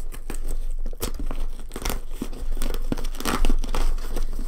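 Cardboard shipping box being opened by hand: irregular tearing and rustling of cardboard and packaging.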